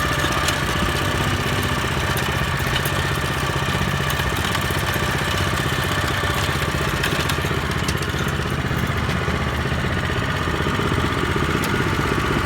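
Small engine of a used Japanese rotary tiller running steadily at an even speed.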